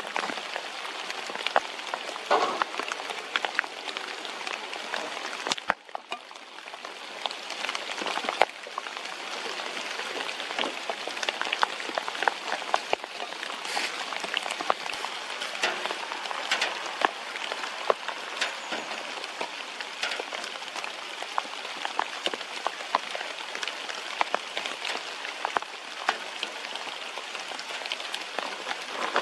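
Steady rain falling, with many separate drops striking close to the microphone.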